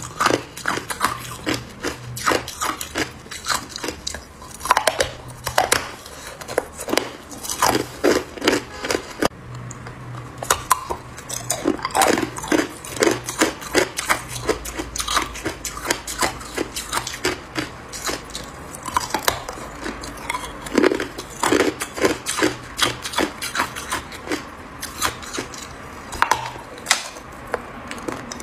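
A chunk of hard ice bitten and chewed: clusters of sharp cracks and crunches, several a second, broken by short lulls.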